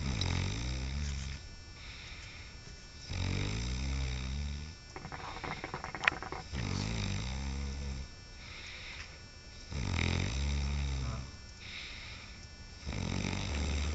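A man snoring heavily: five long, deep snores, one about every three seconds.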